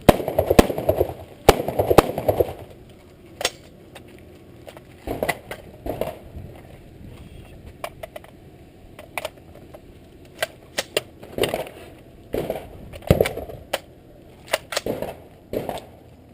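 A string of rifle shots fired at an uneven pace during a timed course of fire. There are bunches of quick shots near the start and near the end, and single shots between them, each a sharp crack.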